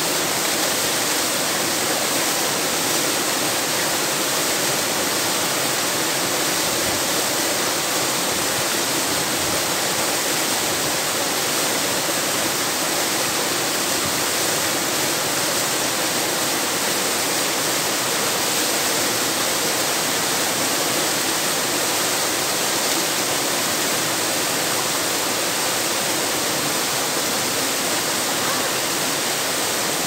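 Waterfall crashing down a rock slab into a plunge pool, a steady, unbroken rush of white water.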